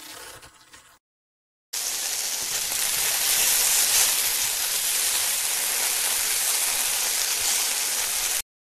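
A steady rushing hiss, like pouring rain or rushing water, starting abruptly about two seconds in and cutting off suddenly near the end.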